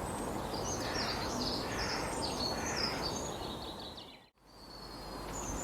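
Several birds chirping, many short overlapping calls over steady background noise. The sound dips out briefly a little after four seconds in, then fades back up.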